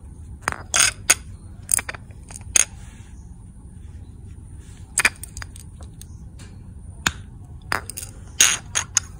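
Irregular sharp metal clicks and short scrapes, about a dozen, as a thumb presses and rocks the spherical bearing of an adjustable shock absorber's pillow ball top mount and the mount is handled.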